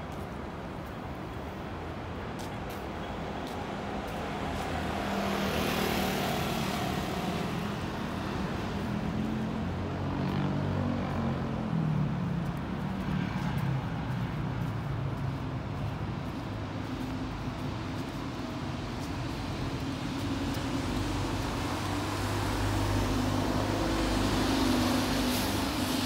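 City street traffic: cars driving past, with a swell of tyre noise about six seconds in and engine hum rising and falling. The engine hum builds louder near the end.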